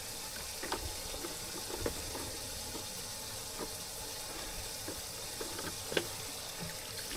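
Steady running, trickling water with a few faint knocks; one sharper knock about six seconds in.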